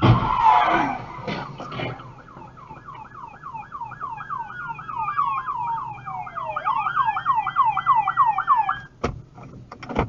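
Police car sirens: a fast yelp of repeated falling sweeps, about three a second, with a second, slower wail falling and then rising over it from about four seconds in. A loud noisy burst opens the sound, the sirens cut off about nine seconds in, and a couple of sharp clicks follow.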